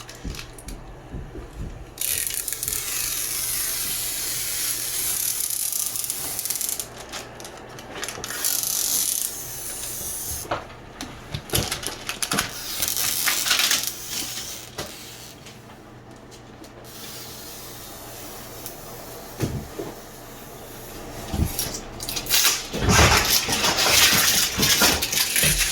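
Rustling and crinkling handling noise with many small crackles. It rises about two seconds in, quietens in the middle, and is loudest near the end.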